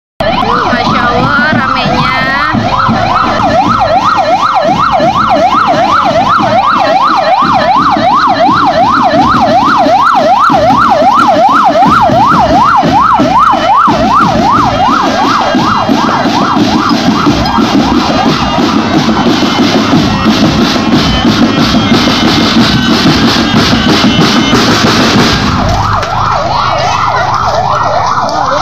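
Police vehicle siren wailing in a fast yelp, sweeping up and down about three times a second, breaking off briefly near the end and starting again. A marching drum band's snare and bass drums beat along under it, growing denser in the second half.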